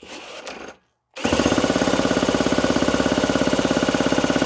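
Vintage Homelite C7 chainsaw's 80 cc two-stroke engine being spun over by a power tool through a one-way-bearing starter, starting abruptly about a second in. It makes a loud, steady drone with an even beat of about fifteen pulses a second, as in a first start attempt on a saw that has sat for years.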